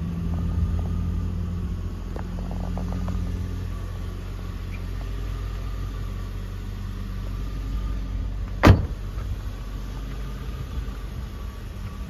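2002 Ford Thunderbird's 3.9-litre V8 idling steadily, with a single loud thump about two-thirds of the way through as the car's door is shut.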